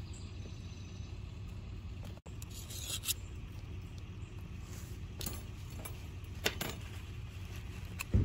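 Metal tongs clinking and scraping against metal kebab skewers as grilled meat and vegetables are slid off onto paper plates. A few scattered clicks and scrapes, the sharpest near the end, over a steady low rumble.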